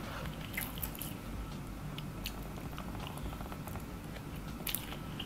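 Close-up chewing of egg fried rice, with wet mouth clicks and a few short, sharp smacks, the loudest near the end, over a low steady rumble.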